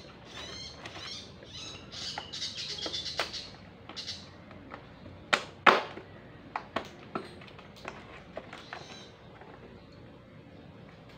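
Plastic housing of a Kawasaki pressure washer knocked and set down as it is turned over by hand: a string of sharp knocks, the loudest about halfway through. High chirping sounds in the first few seconds.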